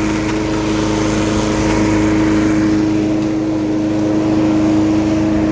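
Billy Goat LB50Q leaf vacuum's small gas engine running steadily, a constant even hum with no change in speed.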